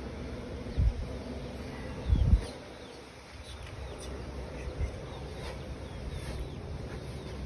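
Outdoor ambience of faint bird chirps over a low rumble, with two dull low thumps about one and two seconds in, the second the louder.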